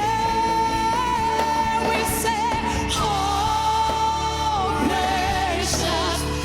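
Live gospel worship band playing, with a singer holding long, wavering notes over steady bass and keyboard, and a few cymbal splashes.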